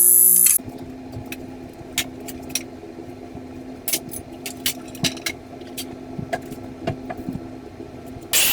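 Music cutting off about half a second in, then a steady low hum with scattered light clicks and knocks, like pieces being handled in a workshop; a short loud burst with a falling high sweep right at the end.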